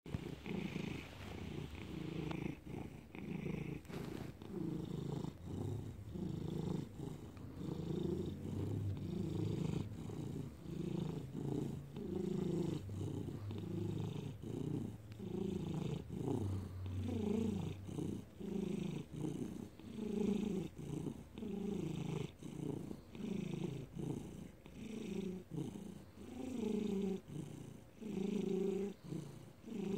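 A ginger domestic cat purring close up while its head is stroked: a steady low purr that swells and eases in an even rhythm of about one pulse a second as it breathes in and out.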